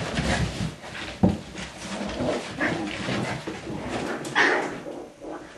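Maltese puppies play-fighting, yapping and scuffling in quick irregular bursts. There is a sharp knock about a second in and a louder yap a little over four seconds in.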